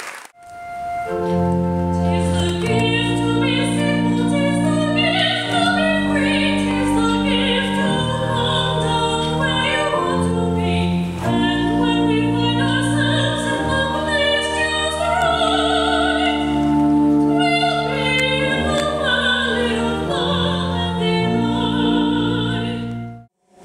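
Classical choral music: voices singing with vibrato over sustained chords. It cuts off near the end.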